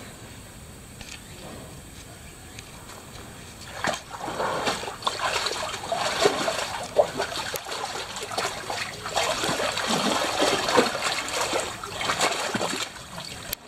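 A white tiger splashing in a pool of water, the splashing starting about four seconds in and going on in irregular surges until it dies down just before the end.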